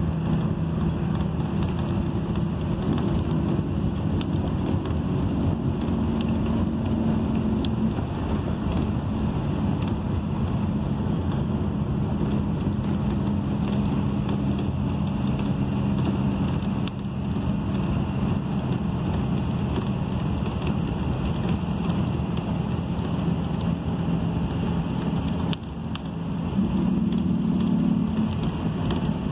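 Inside a moving bus: steady engine drone and tyre and road noise while cruising on a highway. The engine hum grows louder briefly near the end.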